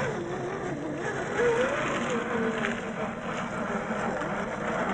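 Electric drivetrain of an MST CFX RC crawler, its RC4WD 20T brushed motor and gears whining, the pitch rising and falling as the throttle is worked while the truck crawls over rock.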